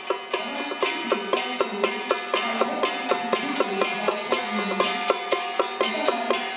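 Traditional Taiwanese temple-procession troupe music: a sharp wooden beat about twice a second over a held, wavering melodic line.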